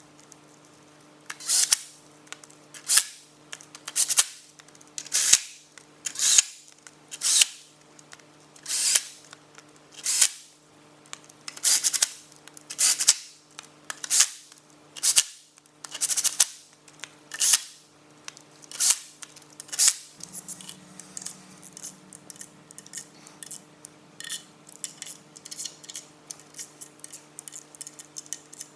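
Rhythmic scraping strokes of a hand tool on the engine's metal, about one a second, as gasket faces are cleaned for the timing covers; about twenty seconds in they give way to a run of lighter, quicker clicks and taps. A faint steady hum runs underneath.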